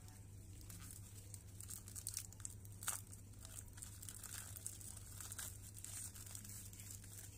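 Plastic courier mailer bag crinkling and rustling as it is handled and pulled open by hand, with a sharp snap of the plastic about three seconds in, over a low steady hum.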